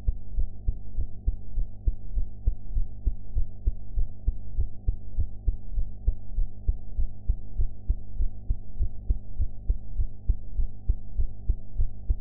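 A young woman's heartbeat heard close up: a steady, regular run of low lub-dub thumps. A constant low hum sits beneath the beats.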